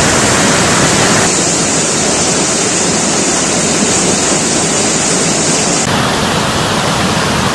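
River in flood, swollen and muddy after days of continuous rain, rushing past in a loud, steady roar of water.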